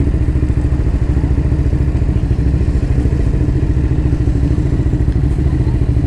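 Motorcycle engine running steadily, its even pulses filling the low end with little else above.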